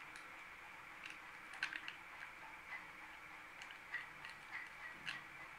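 Scissors snipping through a foil biscuit wrapper: scattered small, irregular clicks and crinkles, loudest about one and a half seconds in.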